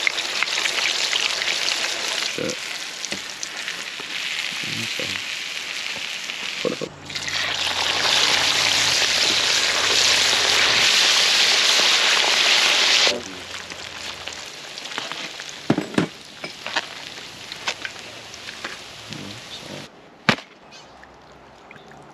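Whole fish deep-frying in hot oil in a wok, a loud, steady sizzle. After about thirteen seconds the sizzle falls away to a quieter level, with scattered light clicks and knocks and one sharp click near the end.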